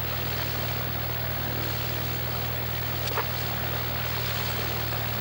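Cessna's piston engine and propeller running steadily, heard inside the cabin as a constant low drone with wide noise over it. There is a single short click about three seconds in.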